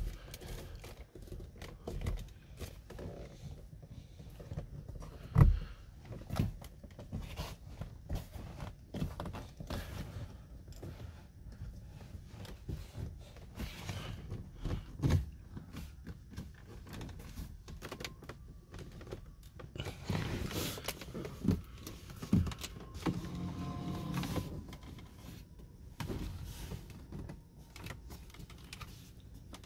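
A hand tapping, knocking and pressing on the door trim, door pull and dash panels of a 2018 Audi A5 Cabriolet interior, a run of short knocks and taps with the loudest about five seconds in. About three quarters of the way through comes a brief steady whine from a small electric motor.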